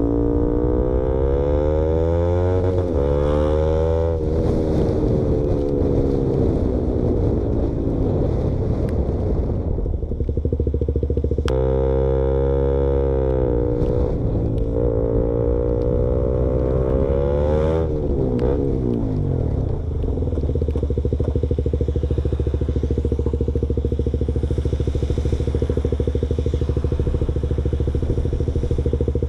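KTM Duke motorcycle with the baffle removed from its exhaust, running loud. The revs climb with gear changes about three and four seconds in, then ease off. They rise again from about twelve seconds, drop near eighteen seconds, and settle to a steady engine note for the last third.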